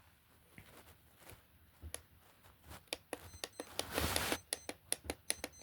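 Rapid small clicks of an Elgin travel alarm clock's setting dial being turned by hand, sparse at first and then coming quickly, with a brief rustle of handling about four seconds in.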